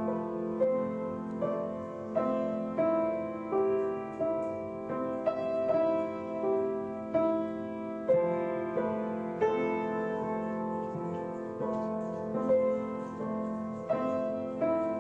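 Solo piano playing a slow, gentle melody, with a new note struck about every two-thirds of a second over a sustained low note.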